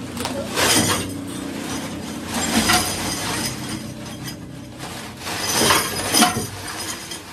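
Metal parts clinking and clattering against one another in three loud bursts over a steady workshop hum.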